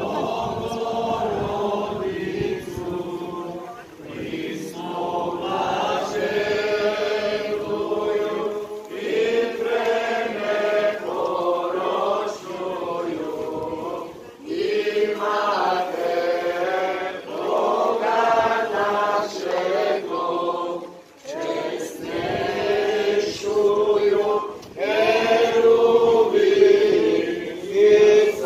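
A group of people singing a hymn together as a choir, in sustained phrases a few seconds long with short breaks between them.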